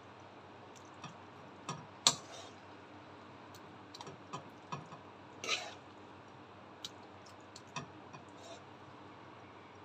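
A spoon clinking and scraping against a cooking pan as cooked mince is dished out. The clicks are light and scattered, with the sharpest knock about two seconds in and a short scrape about five and a half seconds in.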